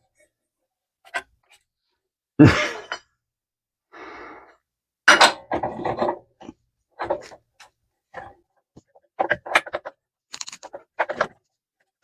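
Sped-up clatter of hand work on a lawnmower's drive belt and pulley: a string of short clanks, knocks and scrapes with gaps between them, the loudest a thump about two and a half seconds in.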